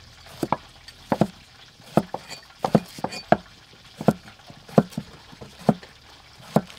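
Cleaver-style knives slicing round eggplants on thick wooden chopping blocks: about ten short, sharp chops at an uneven pace, from several people cutting at once.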